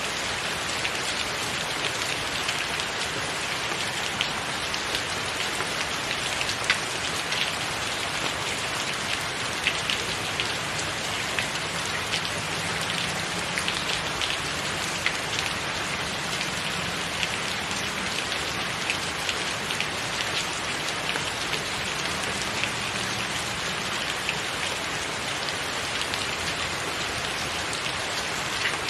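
Steady rain: an even hiss with many small, distinct drop ticks scattered through it.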